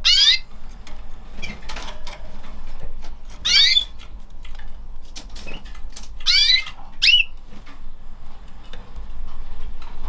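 Domestic canaries chirping: four short, high call notes, one at the start, one about three and a half seconds in and two close together near six and seven seconds. Light clicks and rustles of the birds moving about the wire cage and plastic nest run between them.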